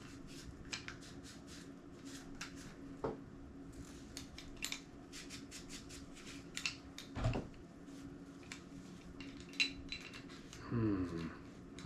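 Scattered small clicks and taps of a plastic camcorder body being handled and wiped with rubbing alcohol, over a faint steady hum.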